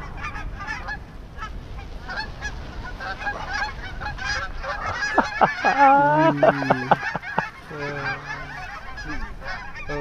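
A large flock of geese honking overhead: many overlapping calls throughout, with a run of louder, lower calls with sharp pitch breaks from about five to seven and a half seconds in.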